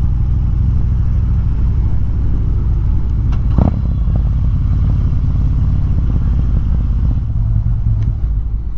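Harley-Davidson Road King's V-twin engine running steadily while riding, mixed with road and wind noise. A single short knock comes about three and a half seconds in.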